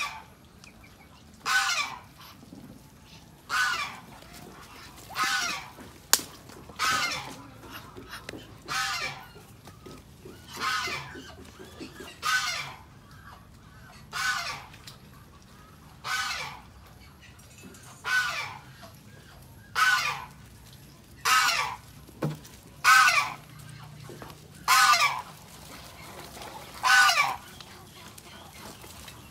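Domestic fowl calling: one short call roughly every two seconds, repeated steadily over and over.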